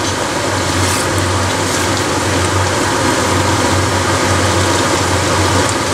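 Diced meat and vegetables sizzling steadily as they fry in a pan, over a continuous low hum.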